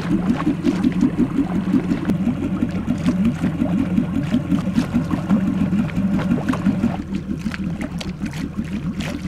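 Small outboard motor running steadily at low trolling speed, with water splashing and trickling against the boat's hull.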